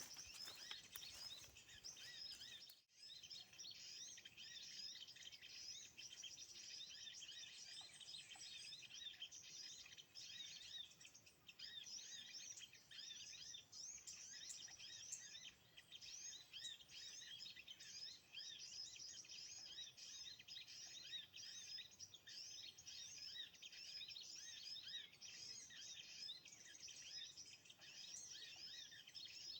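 Faint, dense chirping of many small birds, a steady chorus of short, high overlapping calls.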